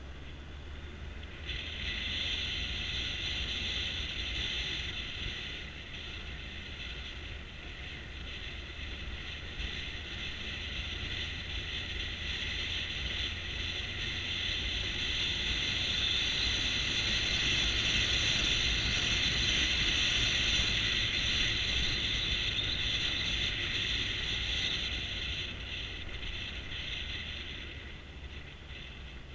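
A motorcycle on the move, heard through a bike-mounted camera: a steady rush of wind and engine noise. It grows louder a couple of seconds in, is loudest around the middle, and eases near the end.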